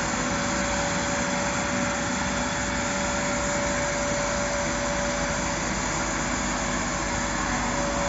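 Electric pool vacuum for fry ponds running steadily, its motor giving a constant whine over an even rushing hum as it sucks water, mud and sand off the tank bottom.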